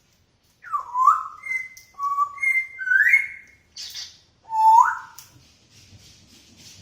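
African grey parrot whistling a run of short clear notes, several of them swooping up in pitch, with a brief breathy burst between them about four seconds in.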